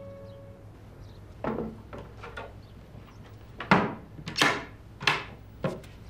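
The last note of soft background music fading out, then wooden knocks and clunks as a wooden case and other things are handled and packed on a table: about seven sharp knocks, the loudest about three and a half seconds in.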